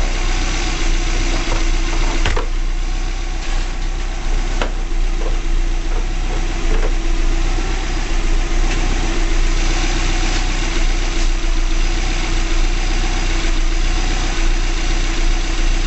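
Freshly rebuilt EJ255 2.5-litre turbocharged flat-four of a 2005 Subaru Legacy GT idling steadily with a constant hum. A couple of sharp clicks come about two seconds in and again just before five seconds.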